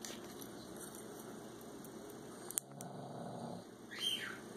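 Faint handling noise of an opened power bank and its circuit board. There is one sharp click about halfway through and a short high squeak falling in pitch near the end.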